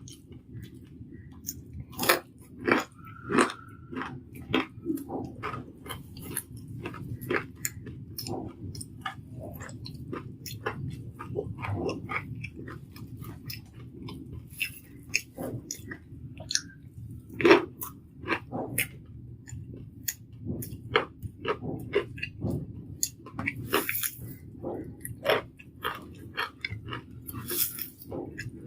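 Close-up chewing and crunching of crispy fried Malabar spinach (pui shak) leaf fritters with rice: irregular crisp crackles and bites, over a steady low hum.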